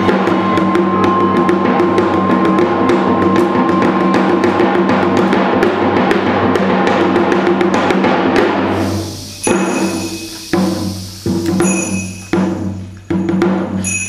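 Janggu, the Korean hourglass drum, played in rapid sharp strokes over a sustained string ensemble. About nine seconds in, the dense playing breaks off into separate accented strikes about once a second, each ringing and dying away.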